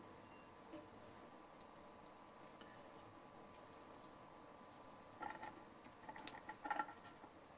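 Quiet soldering and wiring work under a valve-radio chassis: faint, short, high-pitched chirps through the first few seconds, then a run of small sharp clicks and taps from wires and tools being handled near the end.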